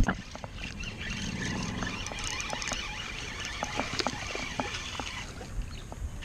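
Spinning rod and reel being worked while a hooked largemouth bass is played in: scattered small clicks and ticks of reel and handling noise, with a low hum in the first couple of seconds.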